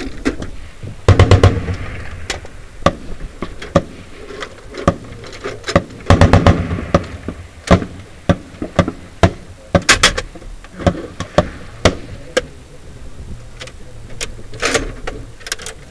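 Metallic clanks and knocks as an MK-19 automatic grenade launcher is reloaded with a belt of linked 40 mm grenades. Two short rapid bursts of very loud sharp bangs break in, about a second in and about six seconds in, sounding like nearby automatic gunfire.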